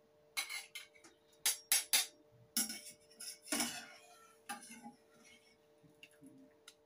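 Metal tongs and a spoon clinking and knocking against a steel saucepan and a bowl as cooked noodles and greens are lifted out of the pot and dropped into the bowl. A quick run of clinks fills the first five seconds, loudest around two and three and a half seconds in, then only a few light taps.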